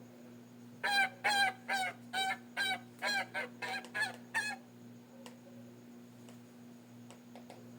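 Goose-like sound effect: a run of about eleven short honking calls over some four seconds, coming faster toward the end.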